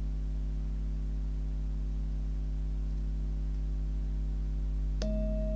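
A steady low hum, then about five seconds in a Himalayan singing bowl is struck once with a mallet and starts ringing with a clear, steady tone.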